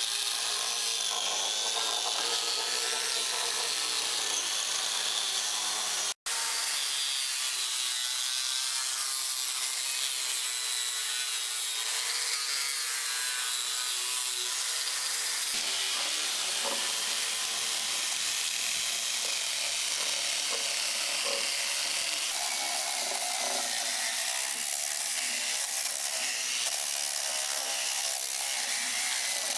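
Power wood-carving machine cutting into wood: a continuous rasping grind with a motor whine that wavers in pitch as the cutter bites. The sound cuts out for an instant about six seconds in.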